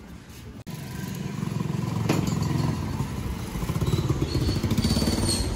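Small motor scooter engine running as it rides past close by. It comes in abruptly just after half a second in and grows louder over the next second.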